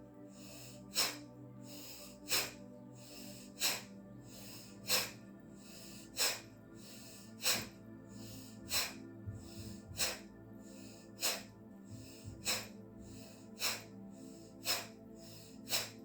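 Bhastrika (bellows-breath) pranayama: a woman taking sharp, forceful breaths through the nose in an even rhythm, about one every 1.3 seconds, over soft background music.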